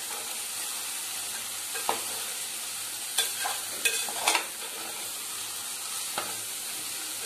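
Shredded cabbage sizzling as it sautés in oil in a pressure cooker pot, with a steady hiss. A spoon stirs it, scraping and tapping the pot about five times.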